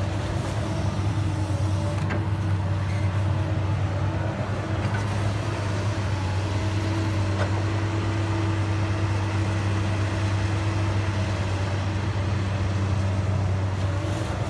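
Komatsu PC200 excavator's diesel engine running steadily while the arm and bucket work: a constant low drone with fainter, higher steady tones over it.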